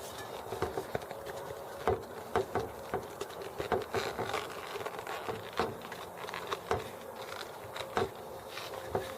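Irregular taps, knocks and rubbing from a bicycle tire, inner tube and steel wheel rim being handled and worked into place, over a faint steady buzz.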